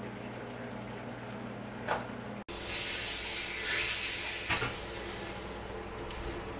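Food sizzling in a hot frying pan while it is stirred with a spatula, starting abruptly about two and a half seconds in, loudest for the first second or so, then settling to a steadier sizzle. Before it, a steady low kitchen hum with one light click.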